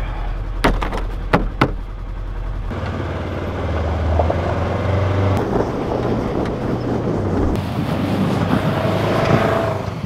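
UTV engine running, with a few sharp knocks in the first couple of seconds as a hard plastic case is set down in its cargo bed; from about three seconds in the engine note changes as it drives off.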